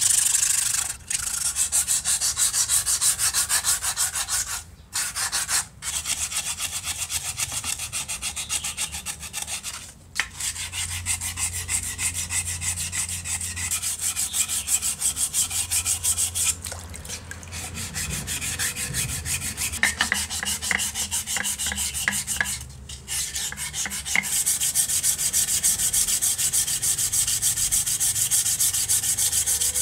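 Hand sanding of a part: rapid back-and-forth rubbing strokes of abrasive, broken by a few short pauses.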